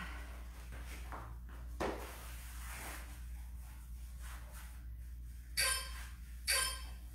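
Faint handling noises, then near the end two short electronic beeps about a second apart from an interval workout timer, counting down the end of a rest period.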